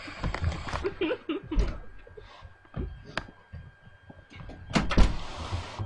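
Irregular knocks, bumps and rubbing of a camera being handled, with a loud bump about five seconds in and brief bits of voice at the start.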